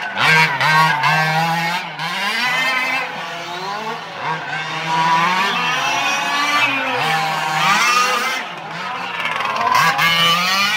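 Several 1:5 scale Losi rally RC cars racing, their small two-stroke petrol engines revving up and down in overlapping rising and falling whines.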